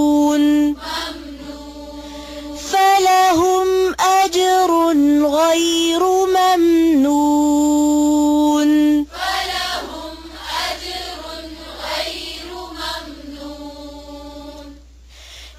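Chanted Quran recitation: a voice in a melodic recitation style, with long steady held notes near the start and again about 7 to 9 seconds in, and quieter, more broken recitation after that.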